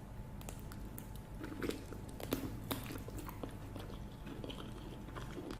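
Close-miked chewing and mouth sounds of someone eating pork, mukbang style, with many small irregular clicks.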